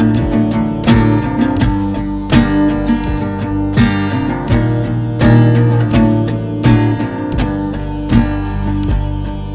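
Rock band song in an instrumental passage, led by strummed acoustic guitar with a steady beat.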